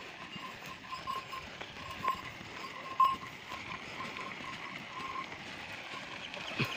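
Ox-drawn bullock cart loaded with soil rolling along a dirt road: hoofbeats and the rattle of the cart, with a short ringing tone repeating unevenly two or three times a second and a sharper knock about three seconds in.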